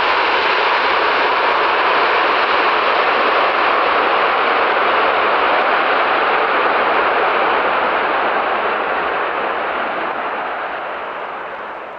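Airbus A380's four Rolls-Royce Trent 900 jet engines and airframe making a loud, steady rush as the airliner rolls out down the runway after touchdown. It fades over the last few seconds as the aircraft moves away.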